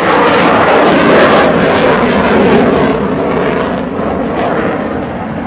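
Jet noise from an F-16AM fighter's Pratt & Whitney F100 turbofan in display flight: a loud, dense roar that peaks about a second in and fades from about three seconds on.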